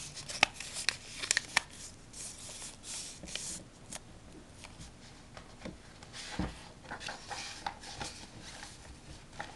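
Origami paper being folded and pressed by hand: irregular crisp rustles and sharp ticks of paper, with a soft low knock about six seconds in.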